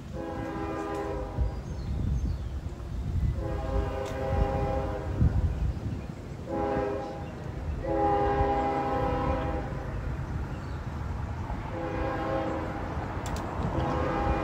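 Nathan K5HL five-chime air horn on a Union Pacific C45ACCTE locomotive sounding the grade-crossing signal: two long blasts, a short one, then a long one, with another long blast starting near the end. Under it runs the low rumble of the approaching train.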